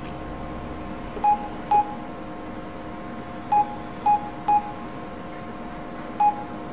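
Keypad beeps from an LG mobile phone as a text message is typed: six short beeps, all at the same pitch, one per key press, coming irregularly in a pair, a group of three and a single.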